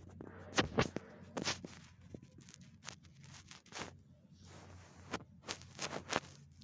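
Pug sniffing and snuffling in short, irregular bursts, its nose down against the bedspread.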